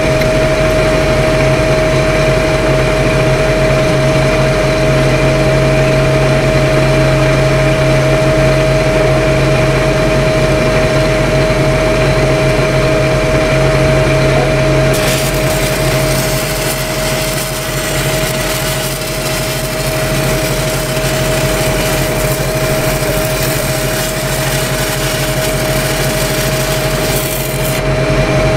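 Engine-driven welding machine running steadily with a constant whine. About halfway through, a welding arc strikes on the pipe and hisses and crackles for about thirteen seconds, breaking off shortly before the end.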